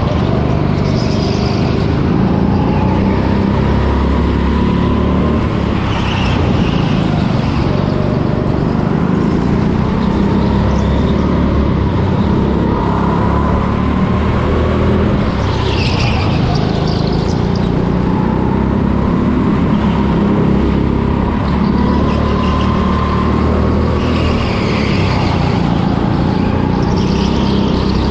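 Go-kart heard from the driver's seat at racing speed, its motor running continuously and rising and falling in pitch as the kart speeds up and slows for the corners, with brief higher-pitched flare-ups several times.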